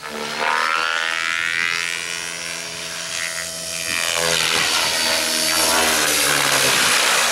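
Align T-Rex 600E Pro DFC electric RC helicopter in flight: the whine of its motor and rotors glides up and down in pitch as it manoeuvres and sweeps past. The rushing of the blades grows louder in the second half as it comes in lower.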